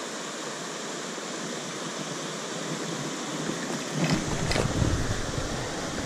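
Steady rush of a small mountain stream running over rocky riffles. From about four seconds in, a low rumble rises under it, with two sharp clicks.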